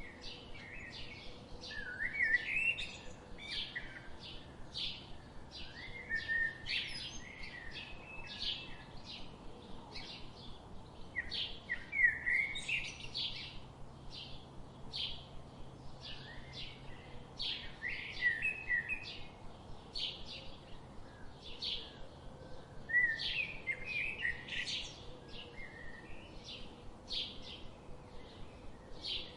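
Songbirds calling: a steady run of short, sharp high chirps, about two a second, with louder warbled song phrases breaking in every few seconds.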